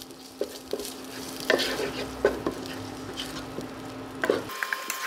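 Blue ginger (galangal) spice paste frying in a pot at a light sizzle, stirred with a wooden spatula that scrapes and knocks against the pot every so often. This gentle, even sizzle, not fast and not too bubbly, is the sign that the pot is at the right heat for the rempah.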